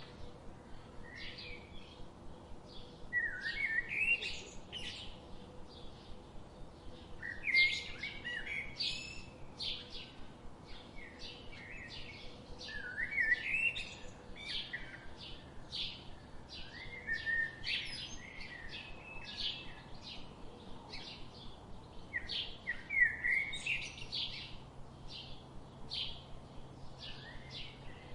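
Birds chirping and singing: a steady run of short, high chirps, with a louder warbling song phrase every four to five seconds.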